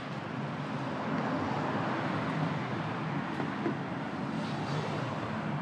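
Road traffic on a busy street: a steady rush of passing cars and buses.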